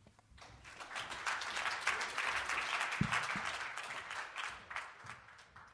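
Audience applauding, building over the first second and dying away near the end, with a low thump about three seconds in.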